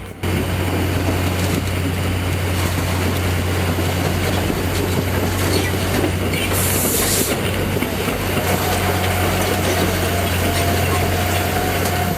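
Heavy machinery running steadily, with a loud low hum under rough grinding noise. A brief hiss comes about six and a half seconds in, and a thin whine joins for the last few seconds.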